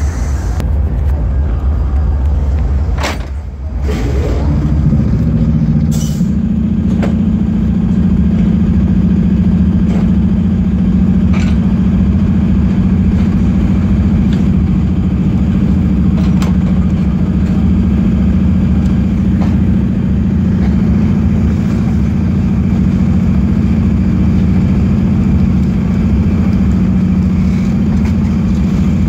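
Diesel-electric locomotive engine running with a loud, steady low drone while the locomotive rolls slowly along the track. The engine note dips briefly and then settles higher about four seconds in. A few sharp clicks stand out now and then.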